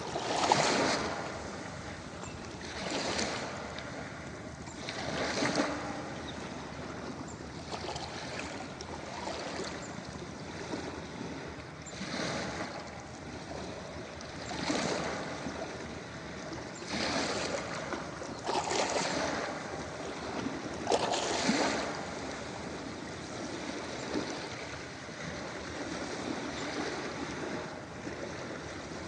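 Ocean waves washing onto a beach: a steady hiss of surf that swells into a louder breaking wave every two to three seconds.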